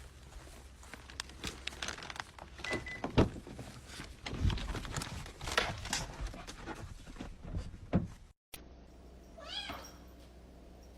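A run of scattered knocks and thumps, then a cat meows once near the end.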